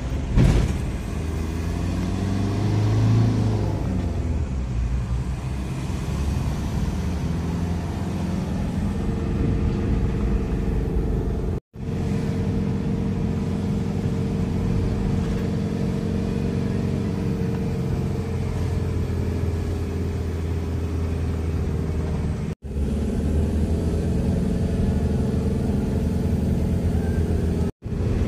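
Car engine and tyre noise heard from inside the cabin while driving: a steady low rumble with an engine hum, swelling briefly a few seconds in. It cuts out for an instant three times.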